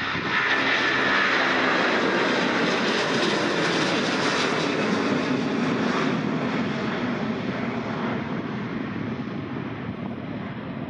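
Large jet airliner passing close, its engines a steady rushing rumble that swells to its loudest about a second in and slowly fades over the last few seconds.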